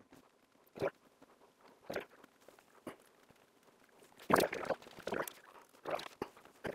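Handling sounds of a hand-held interlocking puzzle as its pen-shaped part is twisted and screwed down into the body: a few separate short scrapes and clicks about a second apart, then a denser cluster just past the middle.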